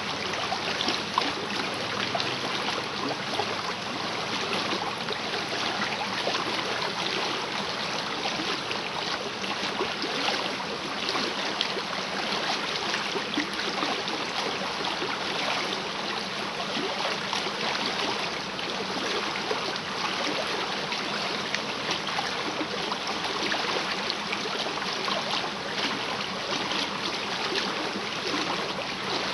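Small river running high after rain, rushing and splashing steadily.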